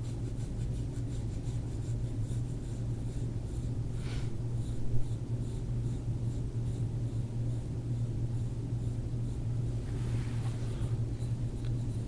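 Fingers rubbing and kneading the skin and muscle at the side of a neck in deep-tissue massage, a faint scratchy rubbing over a steady low hum, with a short sharper sound about four seconds in.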